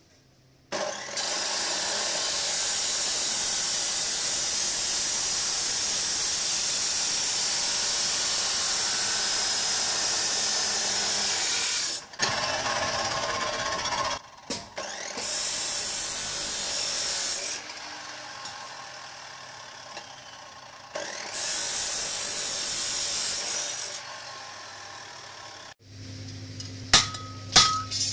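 INGCO abrasive cut-off saw with its disc grinding through steel pipe: a loud, hissing grind in four passes, the first about ten seconds long, with the saw running lighter between them. A few sharp knocks near the end.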